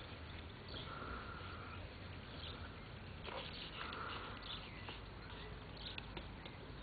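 Faint outdoor ambience in a grassy field: low wind rumble on the microphone, a hoarse sound about a second long that comes twice, and a few light clicks.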